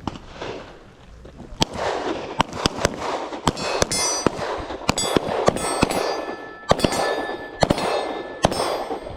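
Handgun shots from several shooters firing together: a quick, uneven string of well over a dozen sharp reports beginning about a second and a half in, some nearly overlapping, with a metallic ringing hanging after several of them.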